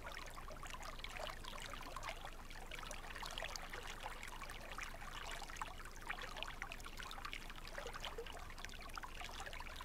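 Stream water running: a steady trickling babble with many small splashes.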